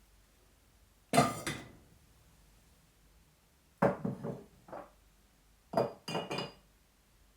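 Ceramic and glass kitchenware clinking and knocking as the teapot is handled after the pour. There is a sharp clink about a second in, then a cluster of three or four lighter knocks around four seconds, then another quick run of clinks near six seconds.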